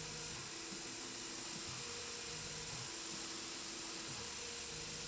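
Tormach PCNC 1100 CNC mill running its spindle while spot-drilling aluminium with a 90-degree spotting tool: a steady hiss with a faint hum that comes and goes as the axes move.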